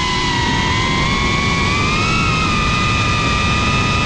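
FPV quadcopter's motors and propellers whining steadily in flight, the pitch rising a little about two seconds in and then holding, over rushing wind noise.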